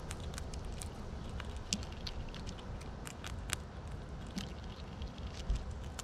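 Squirrels feeding and scrabbling: small, irregular clicks and crackles from gnawing and claws on hard surfaces, over a low steady rumble.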